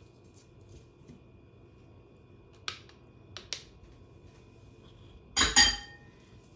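Mesh sieve tapped against a mixing bowl while sifting baking soda: two light taps a little before halfway, then a louder, briefly ringing knock near the end.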